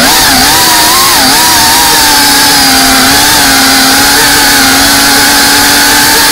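FPV quadcopter's motors and propellers whining loudly as heard from the onboard camera, the pitch wavering up and down with the throttle for the first couple of seconds, then holding steady and creeping higher near the end.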